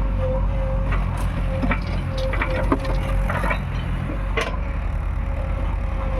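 JCB 3DX backhoe loader's diesel engine running steadily under a thin steady whine, with a handful of short knocks and clanks in the first four and a half seconds.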